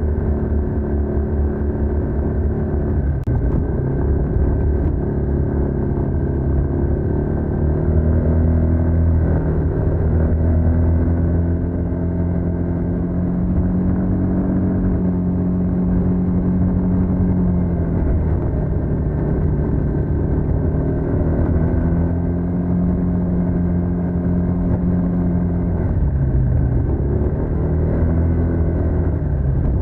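Stock exhaust of a TVS NTorq 125 scooter's single-cylinder engine running under way. The note holds mostly steady, drops a little about two-thirds of the way in, then dips briefly and climbs back near the end.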